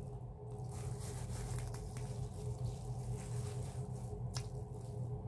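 Quiet eating sounds: chewing, and a few soft clicks from a plastic-gloved hand picking at rice and chicken on a plate, over a steady low hum.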